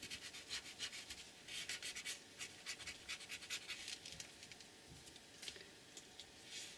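Short, quick scratching and rubbing strokes on paper, in irregular runs, as a drawing is worked over by hand.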